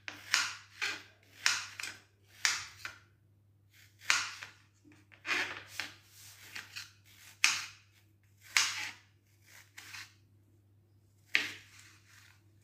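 Kitchen knife chopping a peach into small pieces on a serving tray: a sharp cut-and-tap stroke about a dozen times at uneven intervals, with a pause of a couple of seconds near the end.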